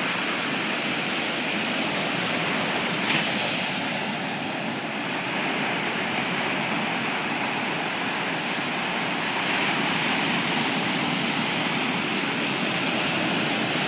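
Ocean surf breaking and washing up a sand beach: a steady rush of waves, with one short click about three seconds in.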